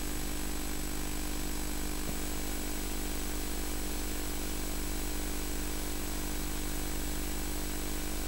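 Steady electrical hum and buzz with an even hiss and a faint thin high whine, the noise floor of a VHS tape recording with no programme sound on it.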